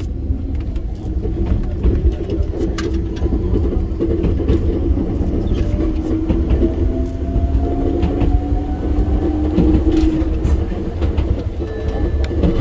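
Enoshima Electric Railway 300-series train running, heard from inside the front car: a steady low rumble with scattered wheel clicks from the rails. From about halfway through, a motor whine rises in pitch as the train picks up speed.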